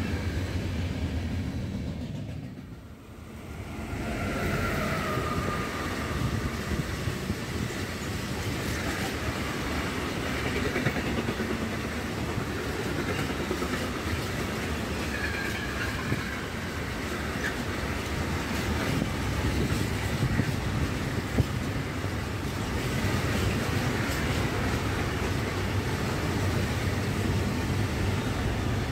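Long empty container freight train passing at speed, its wheels rolling and clattering over the rails with faint wheel squeal now and then. Near the end an ICE high-speed train passes on the adjacent track, and the noise grows louder.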